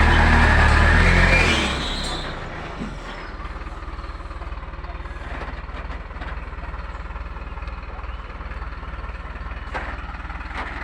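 Diesel truck engine running, loud for the first couple of seconds and then settling to a steady low idle.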